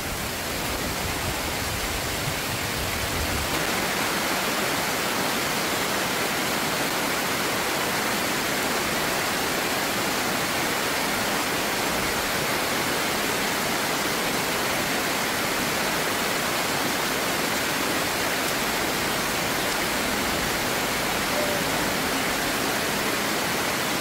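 Water spilling over a low concrete weir in a shallow stream: a steady, even rush of falling water.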